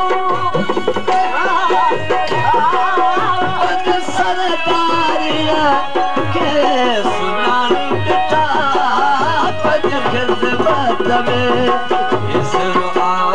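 Live Sindhi folk song: a man sings a wavering, ornamented melody over a long-necked lute and a steady hand-drum beat.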